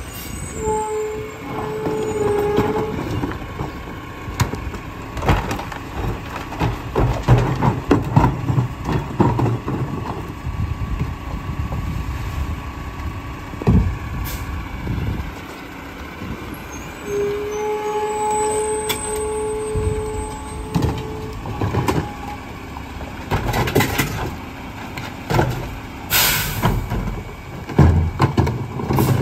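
McNeilus rear-loader garbage truck working a collection stop: diesel engine and packer running, with knocks and clunks as trash carts are handled and dumped into the hopper. A high steady squeal comes in twice, and a sharp air hiss sounds near the end.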